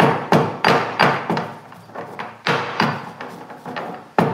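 Stone pestle pounding dry pimento (allspice) berries in a stone mortar: a run of sharp knocks about three a second, with a harder knock near the end.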